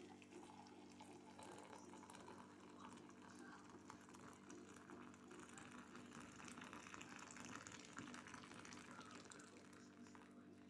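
Faint, steady pouring of hot water into a ceramic mug of loose black tea and sugar, a continuous splashing trickle as the mug fills and froths.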